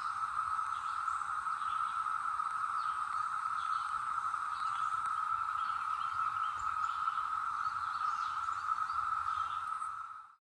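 Brood X periodical cicadas chorusing: a steady, unbroken high-pitched drone, with a few faint short chirps over it. It cuts off suddenly near the end.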